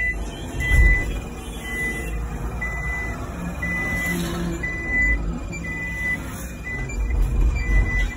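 Tata electric bus's reverse warning buzzer in the cab beeping steadily, a short high tone about once a second, over a low rumble.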